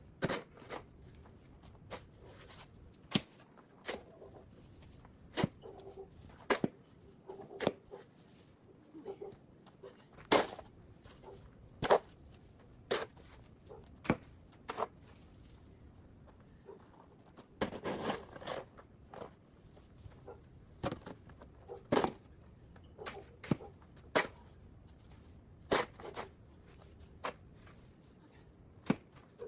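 Snow shovel clearing a porch: a string of sharp knocks and scrapes as the blade strikes and scrapes the deck, about one every second or two, with a quicker flurry a little past the middle.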